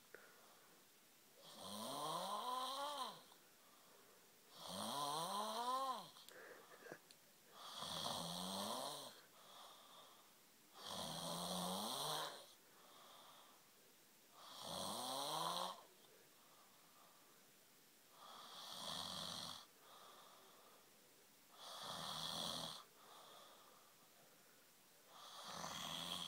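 Snoring in a steady rhythm: eight snores about every three and a half seconds, each a pitched rattle that rises and then falls, with a faint breath between them. The last few snores have less pitch and more hiss.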